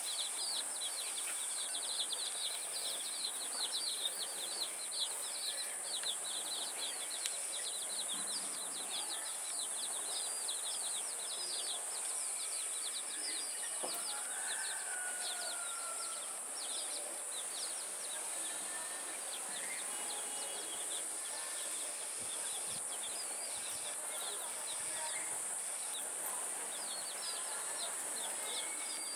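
Chicks peeping in rapid, dense runs of short falling chirps, which thin out about halfway through and pick up again near the end. A single lower call from an adult chicken comes in the middle, over a steady high-pitched hum.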